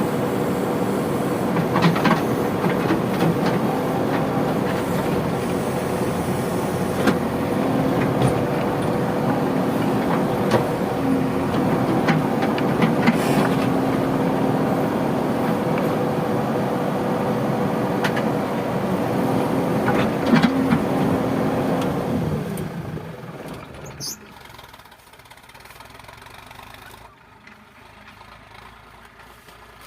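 Diesel engines of a backhoe loader and tractor running steadily under load, with a few sharp knocks now and then. The sound fades out about 23 seconds in, leaving a quieter background.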